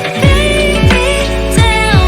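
Background music with a steady electronic beat: a sweeping bass drum about every 0.7 s under a melody.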